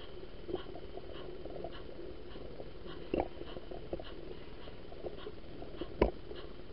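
Model freight train running along its track, heard from a wagon of the train: a steady running hum with light clicks about twice a second and two sharper clacks, about three seconds in and, louder, about six seconds in.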